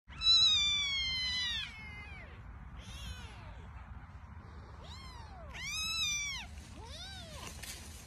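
Kittens meowing: one long, high, slightly falling meow at the start, the loudest, then a run of five or so shorter, arching meows, some overlapping.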